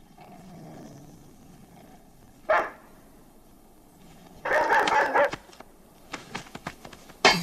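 Dog barking: one sharp bark about two and a half seconds in, then a longer, louder burst of barking about two seconds later. A few short knocks follow, with a loud hit near the end.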